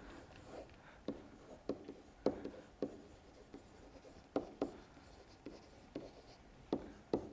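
Stylus writing on a tablet screen: a string of short, faint, irregular ticks and scratches as the letters are stroked out.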